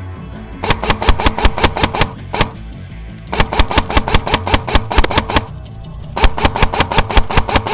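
Classic Army DT4 double-barrel airsoft electric rifle firing on full auto: three long rapid bursts of about ten shots a second with short pauses between them, over background music.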